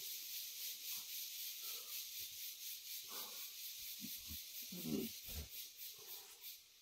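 A chorus of insects buzzing in a high, rapidly pulsing drone, with faint brief voice sounds about three and five seconds in.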